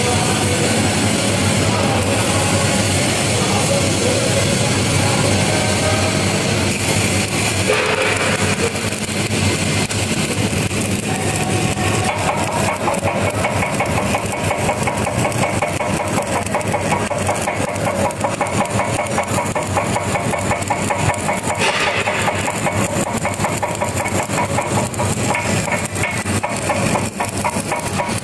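Stick-welding arc crackling steadily as a 7018 electrode runs a cap pass up a pipe, with an engine running steadily underneath.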